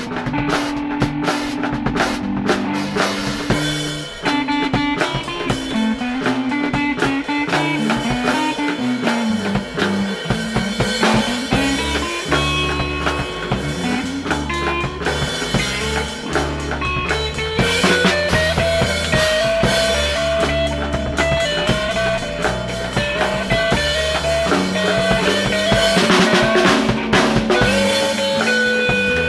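Instrumental rock jam on drum kit, guitar and bass guitar: cymbals and drums keep a beat under a wandering guitar line. The bass comes in strongly about a third of the way through.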